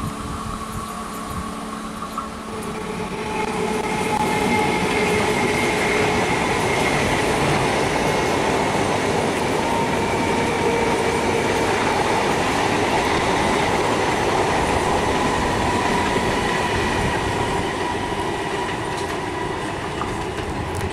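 Indian Railways electric suburban local train (EMU) running past on the track: wheel-and-rail noise with a steady whine over it, swelling a few seconds in and easing near the end.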